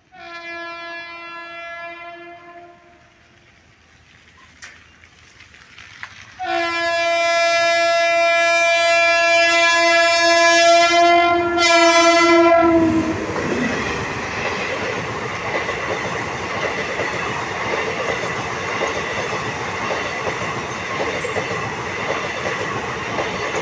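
Indian Railways train horn sounding a blast of about three seconds, then a longer blast of about six seconds with a brief break near its end. The train then runs past, its wheels clattering steadily on the rails.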